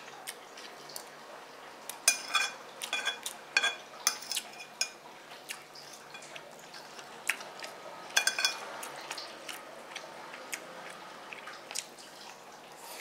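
Metal spoon clinking and scraping against a ceramic bowl while scooping up fried rice: a cluster of clicks about two to five seconds in and another around eight seconds in, some with a short ring.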